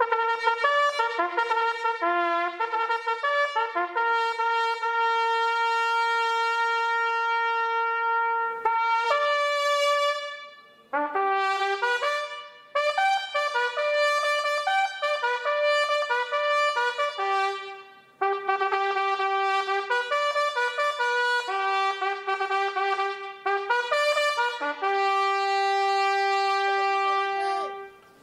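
Solo trumpet playing a slow melody, with several long held notes and short breaks between phrases.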